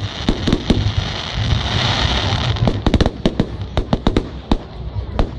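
Aerial firework shells bursting: a string of sharp bangs, a stretch of dense crackling in the middle, then a rapid volley of bangs from about three seconds in.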